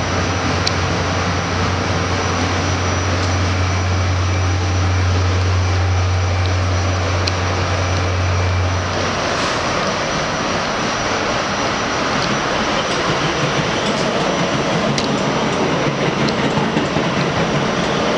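R68 subway car running along the track, heard from inside: a steady rumble and rush of wheels on rail, with scattered sharp clicks over the rail joints. A low steady hum runs under it and cuts off about nine seconds in.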